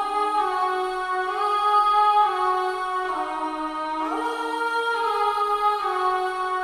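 Sustained voice-like pad chords from the 'Death Piano' sample library, held and changing about every second or so, with each chord gliding smoothly into the next.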